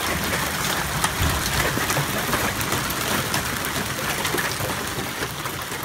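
A hailstorm with heavy rain: a steady hiss of rain dotted with many small, sharp ticks of hailstones hitting the ground and the parked cars.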